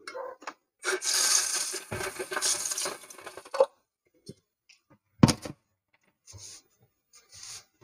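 Kitchen handling noise at a stainless steel sink: a rustling, scraping noise for about three seconds, then a single heavy metallic clunk about five seconds in as the stainless steel pot of rice is set down into the sink.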